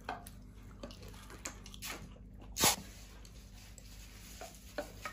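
Quiet eating sounds: a few soft clicks of chopsticks against a stainless steel bowl and mouth noises, the loudest about two and a half seconds in.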